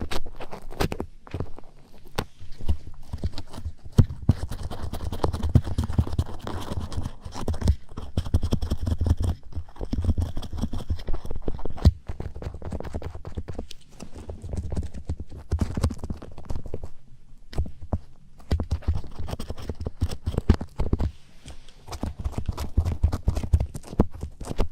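Close-miked ASMR handling sounds of a daruma: irregular light taps and clicks over dull, low rubbing and scratching. They come in uneven stretches with a couple of short lulls.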